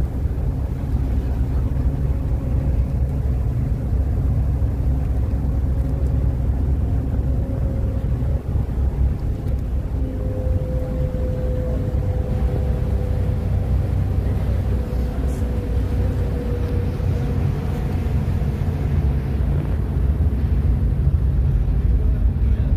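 Steady low rumble on the open deck of a moving harbour ferry: the vessel's engine drone and rushing water, with wind buffeting the microphone.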